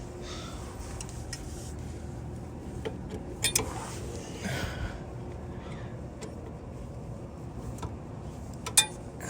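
Brake parts being handled and fitted: a few sharp metal clicks and taps, the loudest near the end, over a steady low hum.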